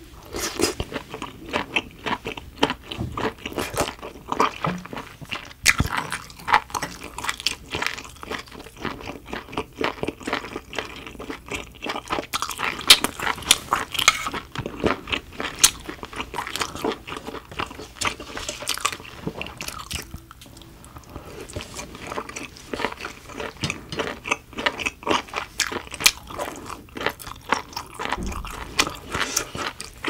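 Close-miked chewing of steamed shellfish meat: many quick, wet, crunchy bites and mouth clicks, briefly easing off about twenty seconds in.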